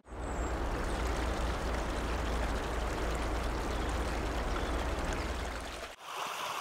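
River water rushing over a shallow riffle, with a steady low rumble under it. The sound drops out briefly about six seconds in, then the running water returns without the rumble.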